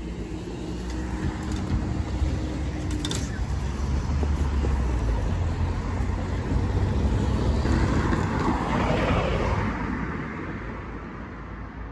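Level crossing barrier mechanism humming as the boom rises, stopping with a clunk about three seconds in. Road traffic then rumbles over the crossing, loudest about two-thirds of the way through as a vehicle passes, and fades.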